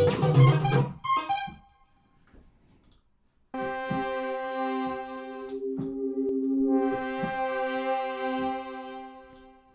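ARP Odyssey software synthesizer being played: a keyboard passage dies away in the first second and a half. After a short near-silence, a held synth chord starts about three and a half seconds in and sustains, with a couple of brief breaks where the notes are struck again.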